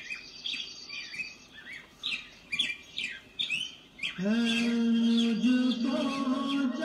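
Birds chirping in quick, short, falling calls at the opening of a played naat track. About four seconds in, a long held tone with a hum-like steady pitch comes in under the chirps and steps up slightly near the end.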